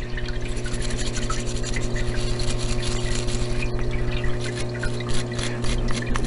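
Small rifle bolt part being scrubbed in a parts-washer tank of solvent to clear out packed grease: fast rubbing and scraping with liquid sounds, over the steady hum of the washer's electric pump.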